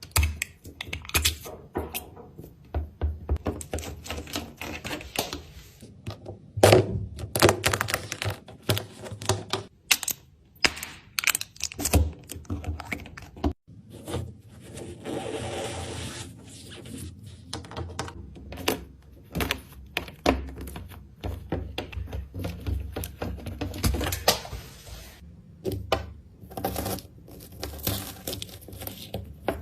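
Rapid irregular clicks, taps and knocks, like objects being handled and struck on a hard surface, with a brief steadier scraping or rustling stretch about halfway through.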